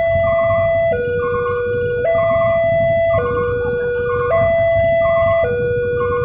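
Railway level-crossing warning alarm, an electronic two-tone signal alternating between a higher and a lower tone, each held about a second, warning that a train is approaching while the barrier is down. A low rumble of traffic runs underneath.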